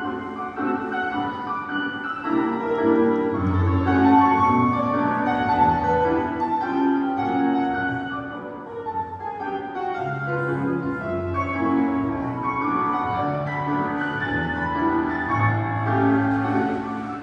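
Classical piano music playing continuously, as accompaniment for a ballet class exercise.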